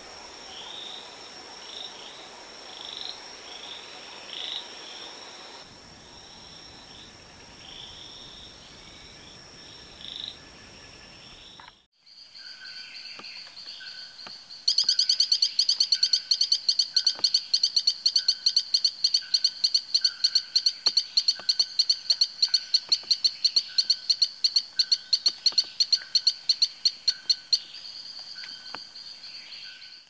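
An Ischnocnema frog giving short chirps at irregular intervals over a steady high whine. Then a Hylodes torrent frog gives a long, fast pulsed call of about five notes a second, starting about 15 s in and lasting about 13 s, much louder than the chirps.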